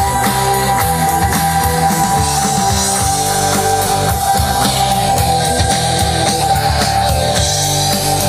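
Rock music with electric guitar and drums played loud through a pair of bookshelf speakers driven by a homemade stereo amplifier built on two TDA2030A chips. A steady high tone runs unchanged under the music.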